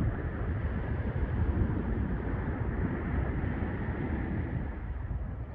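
Wind rumbling on the microphone over a steady hiss of surf.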